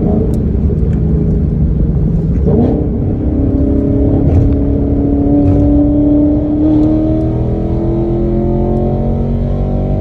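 V8 car engine and loud exhaust pulling under acceleration. The engine note drops briefly about two and a half seconds in, then rises steadily in pitch.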